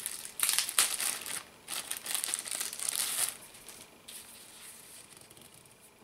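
Paper instruction booklets rustling and crinkling as they are handled and pulled apart, in several bursts over the first three seconds, then fading to faint handling noise.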